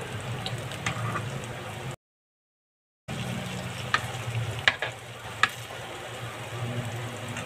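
Eggplant omelette patties sizzling in shallow oil in a pan, with a few sharp clicks of the metal spatula against the pan midway through. The sound cuts out for about a second, two seconds in.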